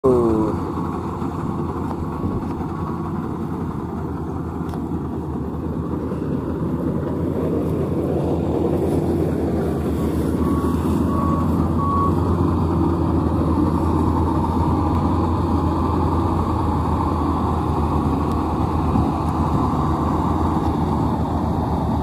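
Maxxi NDR85 Turbo Matic combine harvester working through standing rice, its diesel engine and threshing machinery a steady drone that grows louder about a third of the way in. Two brief runs of high beeps come from the machine, one near the start and one about ten seconds in.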